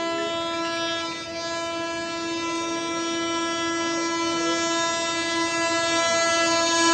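Indian Railways express locomotive's horn held in one long, unbroken blast, steady in pitch and growing slightly louder toward the end as the train passes.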